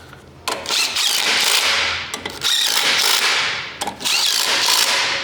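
Small cordless DeWalt impact driver running down the 13 mm clutch pressure plate bolts, in three bursts of about a second each.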